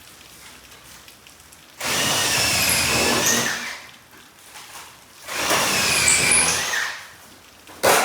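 Power drill run twice, about two seconds each time, its motor whine wavering in pitch under load, followed by a single sharp knock near the end.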